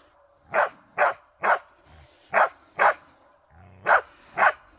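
Karelian bear dog barking at a moose decoy: seven sharp barks in short groups of two or three, about two a second.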